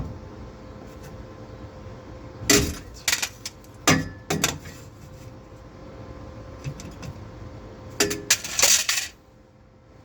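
Metal parts or tools being handled: a few sharp metallic clanks and clinks, then a short clattering run of them near the end.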